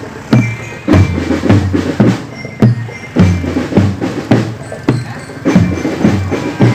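Marching drum band playing in a steady rhythm, with loud, regularly repeating marching bass drum beats and other percussion between them.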